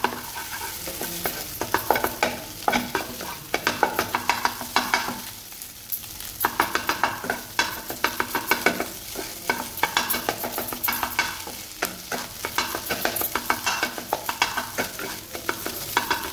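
Eggs sizzling in hot oil in a nonstick frying pan while a wooden spatula scrapes and taps quickly against the pan, scrambling them. The stirring eases briefly about five seconds in, then resumes.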